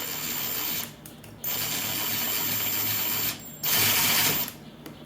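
Power drill driving a machine screw to fasten a doorknob handle, run slowly in three goes with a steady whine. The first stops about a second in, the second lasts about two seconds, and a shorter, louder one comes near the end.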